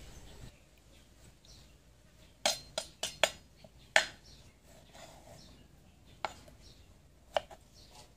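Kitchen knife slicing tomatoes on a wooden cutting board: seven sharp knocks of the blade on the board at uneven spacing, four in quick succession about two and a half seconds in, the loudest a little later, then two single knocks further apart.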